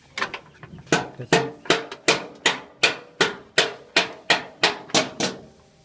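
Steady hammering on metal: about fifteen sharp blows at an even pace of roughly three a second, each ringing briefly, stopping shortly before the end.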